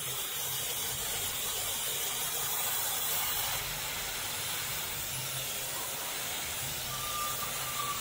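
Dyson Supersonic hair dryer running steadily, blowing with a constant rushing hiss of air.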